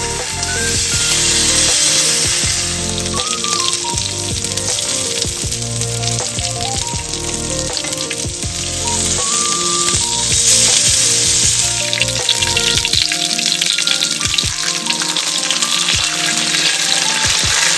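Food frying in a hot pan, a steady sizzling hiss with crackle that thickens in the second half, over background music.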